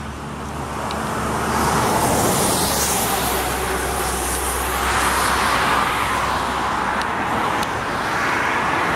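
Road traffic going by: a steady rush of tyre and engine noise that swells and fades, loudest about two seconds in and again around five seconds.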